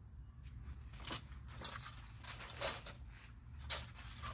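Faint rustles and a few brief light clicks of handling close to the microphone, spread about a second apart, over a low steady rumble.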